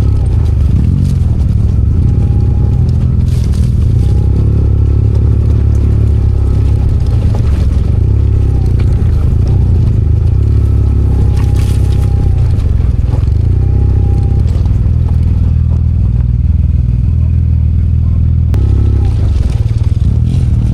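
Yamaha TMAX maxi-scooter on the move: a steady low engine drone mixed with heavy wind rumble on the microphone, holding at a constant level throughout.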